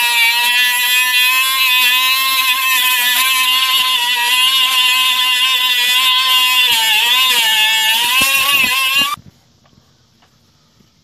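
Pneumatic cut-off tool running at speed with a high whine, its wheel grinding into the sheet-steel bracket, the pitch dipping briefly as it bites under load. The tool stops about nine seconds in, leaving a few faint knocks.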